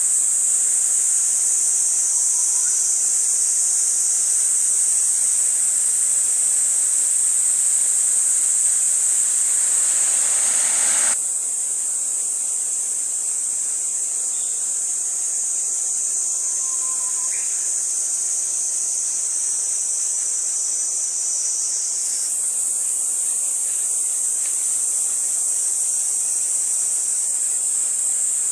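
Insect chorus: a dense, steady, high-pitched buzzing that drops a little in level about eleven seconds in, with a few faint short chirps beneath it.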